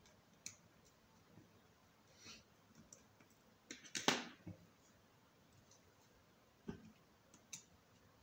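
Small precision screwdriver clicking and tapping against the metal-and-plastic frame of an Oukitel WP6 rugged phone as it works at the side edge. The clicks are scattered and irregular, with the loudest cluster about four seconds in.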